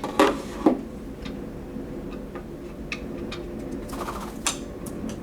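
Light clicks and taps of small objects being picked up and set down during a parrot's fetch trick, with two sharper knocks in the first second and a small cluster of clicks near the end.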